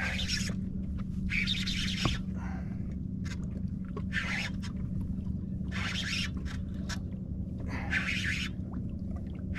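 Spinning reel's drag giving line in short buzzing bursts, every second or two, as a hooked jewfish runs against a heavily set drag. A steady low hum runs underneath.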